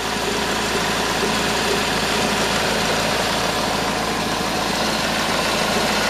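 Honda Civic engine idling steadily, heard with the bonnet open.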